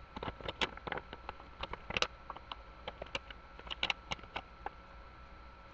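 Paper rustling, with irregular crinkles and light taps, as a photo card is slid into a paper envelope; the handling stops about five seconds in.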